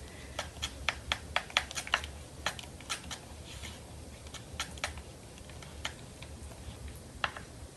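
Yellow-orange acrylic paint being mixed in a plastic palette well: a run of light clicks and taps of the mixing tool against the plastic, quick at first, then thinning out after about three seconds.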